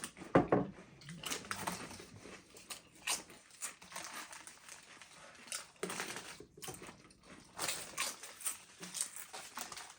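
Doritos tortilla chips being crunched and chewed, with chip bags crinkling in irregular crackles. A short vocal sound comes about half a second in.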